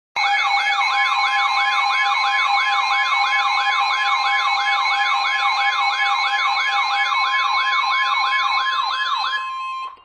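Several weather-alert radios sounding their alarms at once for a tornado warning: a rapidly repeating siren-like sweep, about three a second, over steady alert tones, one of which comes in about a second in. Most of the alarms stop shortly before the end, leaving a single steady tone.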